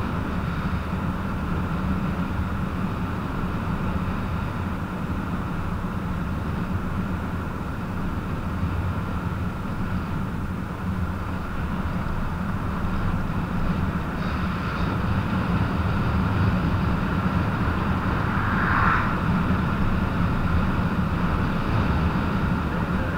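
Steady wind and road rumble while riding an Emmo Zone S electric motorcycle, with a steady mid-pitched whine over it. A short brighter sound comes near the end.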